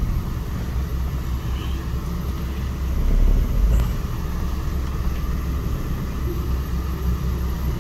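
Low, steady engine and road rumble heard from inside a VW up! hatchback rolling slowly, growing louder for a moment about three seconds in.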